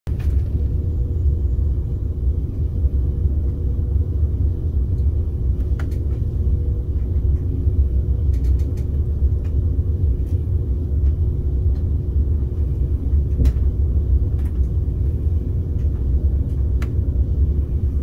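Steady low rumble of a KTX-Sancheon train running, heard inside the passenger cabin, with a faint steady hum and a few light clicks.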